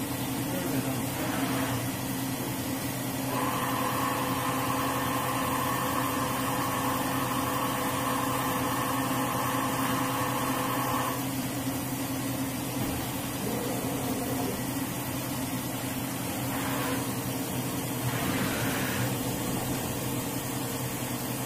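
Doosan DNM 350/5AX five-axis machining center running with a steady hum, a higher whine joining from about three to eleven seconds in as its tilting rotary table moves; short hissing sounds come a few times.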